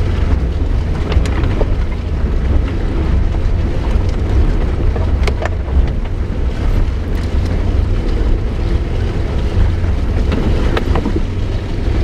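Suzuki Jimny heard from inside the cabin while driving slowly along a muddy lane: a steady low engine and road drone, with a few sharp knocks about a second in, around the middle and near the end.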